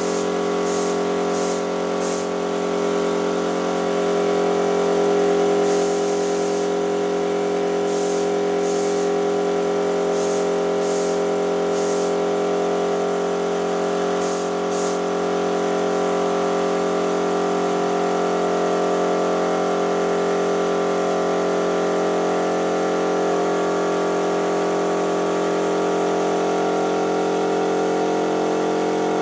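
A machine motor running steadily, with about a dozen short bursts of hiss in the first half.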